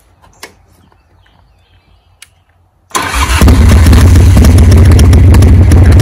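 1991 Harley-Davidson FXRS's 80-cubic-inch Evolution V-twin engine cranking on the starter about three seconds in, catching almost at once, then running loud and steady at idle through aftermarket Python pipes. A few light clicks come before the start.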